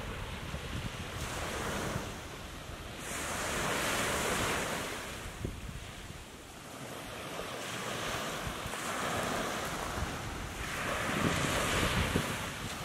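Small Gulf of Mexico waves breaking and washing up a sandy beach, the surf swelling a few seconds in and again near the end. Wind rumbles on the microphone underneath.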